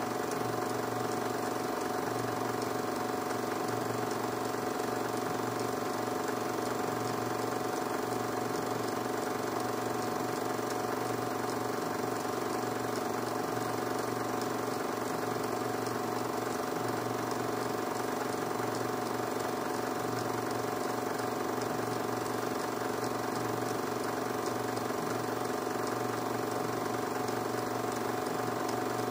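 A 16 mm film projector running with an even mechanical whirr and a steady hum that does not change.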